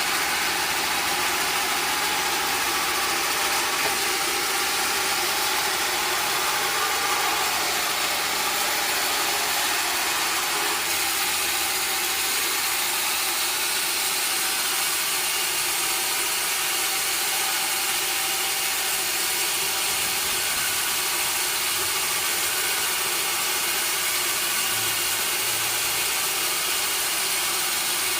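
Sawmill machinery running steadily, an even, unchanging mechanical noise.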